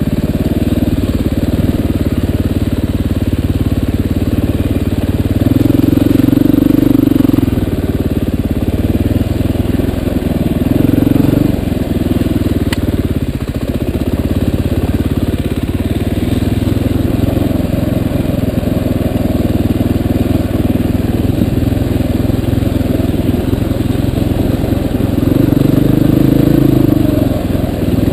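Dirt bike engine running under load as the bike is ridden along a trail, the throttle rising and falling. The engine gets louder as it revs up about six seconds in, briefly again around eleven seconds, and once more near the end.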